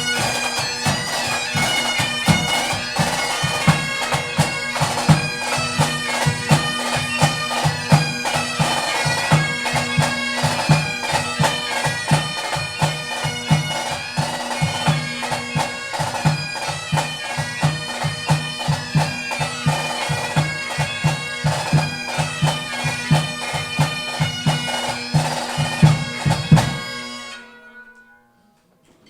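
Pipe band playing: Highland bagpipes sound a melody over steady drones, with regular drum strokes underneath. The band stops together about two seconds before the end.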